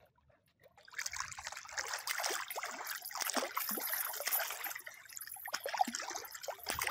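Water splashing and trickling as a fish is dragged on a chain through shallow river water and thrashes at the surface, with water streaming off the chain. It starts suddenly about a second in and goes on in irregular splashes.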